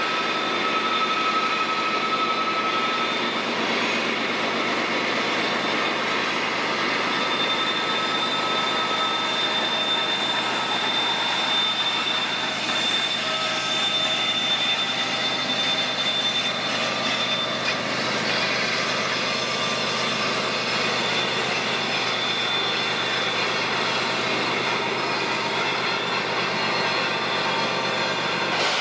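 Cars of a mixed freight train rolling past: steady rumble of wheels on rail, with thin, high wheel squeals that come and go.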